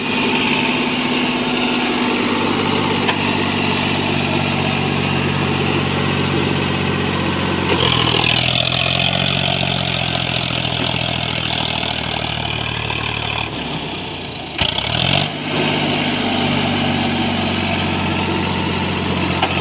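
Sonalika MM-39 tractor's diesel engine running under load, hauling a brick-laden trolley. It revs up about eight seconds in, eases off briefly with a click about two-thirds of the way through, then pulls again.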